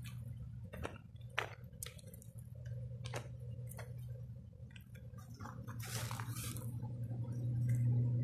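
Footsteps crunching on a leaf-strewn dirt path: a few irregular sharp crunches and a longer scuff about six seconds in, over a steady low hum.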